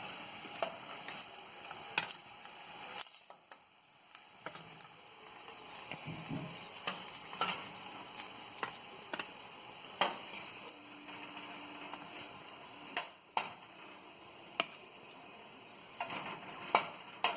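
Metal spatula clinking and scraping against a frying pan as shallow-fried potatoes are lifted out into a bowl, with scattered sharp clicks over a faint sizzle of hot oil.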